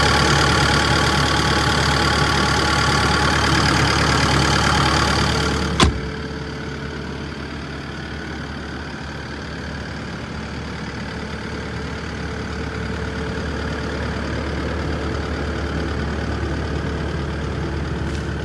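Takeuchi TB290 excavator's turbocharged diesel engine idling steadily, at first loud and close-up at the open engine bay. About six seconds in there is a sharp click, and after it the idle is quieter and duller, heard from outside the machine.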